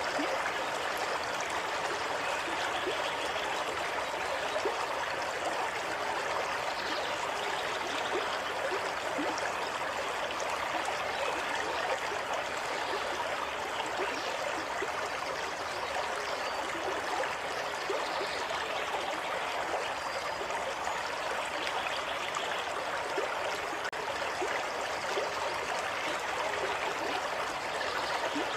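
A small stream of water running and trickling steadily, with small gurgles.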